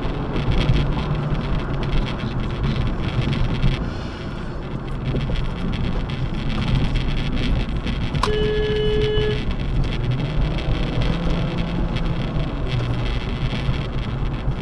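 Steady road and engine noise of a car driving at freeway speed, heard from inside the cabin. About eight seconds in, a short single steady tone sounds for about a second.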